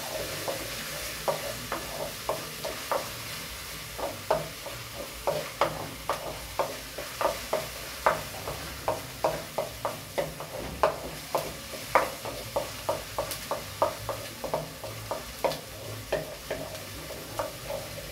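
Chopped onion sizzling as it is sautéed in butter and olive oil in an aluminium saucepan, softening until it wilts. A spoon stirs it, clicking against the pan about two or three times a second.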